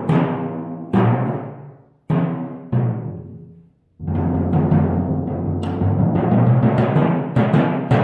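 Two copper-bowled timpani struck with mallets. A few single strokes, each with a clear pitch that rings and dies away, then a continuous roll from about four seconds in, with a fresh accent near the end.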